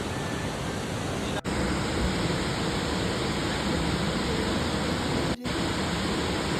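Steady rushing roar of Jog Falls, a continuous dense hiss of falling water, broken by two brief dropouts about a second and a half in and near the end.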